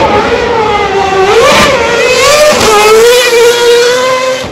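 Red Bull Formula One car's engine revving loud, its pitch swinging up and down and then holding steady as it runs past close by. It starts to fade near the end.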